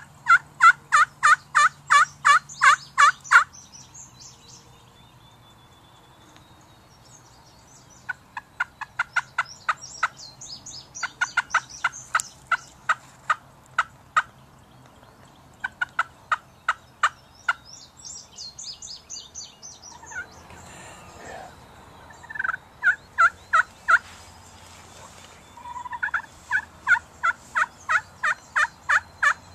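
Hen turkey yelps and cutts from a hunter's hand-held turkey call, worked hard in loud runs of sharp, evenly spaced notes, about four a second, several series with pauses between. Fainter, higher chatter comes between the runs.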